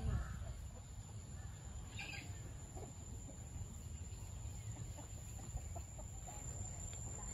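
Chickens clucking, with a short squawk about two seconds in, over a low steady rumble.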